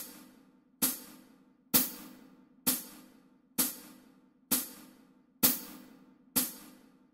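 Percussion click track ticking on each beat, eight evenly spaced sharp ticks a little under a second apart, each dying away quickly. No saxophone is heard: the melody part is in rests.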